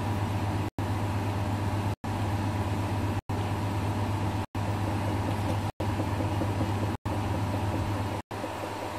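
Steady low electrical hum with hiss over it, broken by short, complete dropouts about every second and a quarter.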